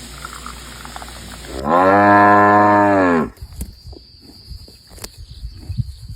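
A cow mooing once: a single loud call of about a second and a half that rises and then falls in pitch. Faint scattered ticks follow.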